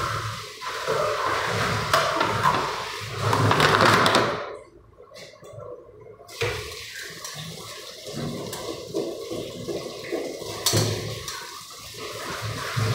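Water from a kitchen tap running into a stainless steel sink while things are rinsed by hand. It stops about four and a half seconds in, then starts again more quietly about two seconds later.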